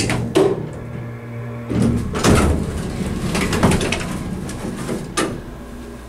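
Elevator arriving at its floor: a couple of clicks, then a low hum that stops about two seconds in. The car and landing doors then slide open with a run of rattling and several clunks, the last one about five seconds in.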